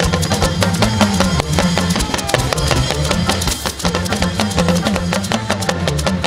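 Live juju band music: drum kit and percussion playing a steady, busy dance rhythm over bass and electric guitar.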